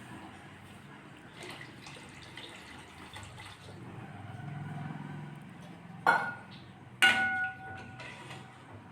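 Two sharp metallic clinks of a utensil against cookware, about a second apart, the second ringing briefly, over faint liquid sounds from the pan of rasam.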